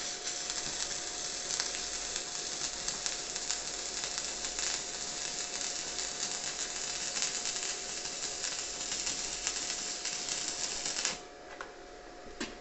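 Stick (MMA) welding arc from a Daniu MINI MMA-200 inverter welder burning a 2.5 mm electrode: a steady dense hiss full of fine crackles that cuts off suddenly near the end as the arc is broken. A faint steady high tone runs beneath it.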